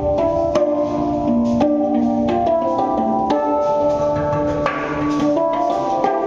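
Handpan (hang) played with the hands: struck steel notes ring on and overlap in a steady rhythmic melody, with sharp taps between them.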